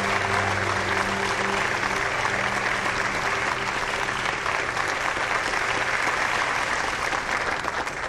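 A roomful of people applauding steadily, with low background music underneath; the clapping dies away at the very end.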